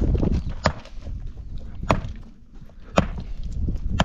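Four sharp blows of a hand tool striking wood or stone, about one a second, over a low rumble that is strongest at the start.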